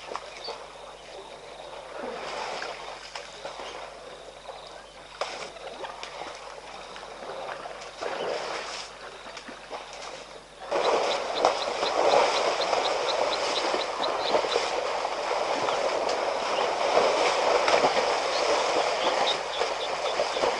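African elephants splashing and wallowing in a muddy waterhole: scattered faint splashes at first, then, about halfway through, much louder continuous splashing of mud and water as calves roll in it close by. A rapid run of high chirps sounds over the splashing for a couple of seconds.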